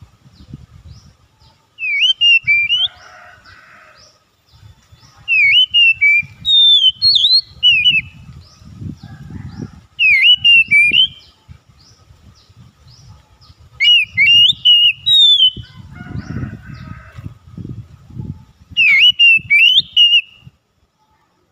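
Oriental magpie-robin singing: five short phrases of clear, sweeping whistled notes, each one to two seconds long, coming a few seconds apart.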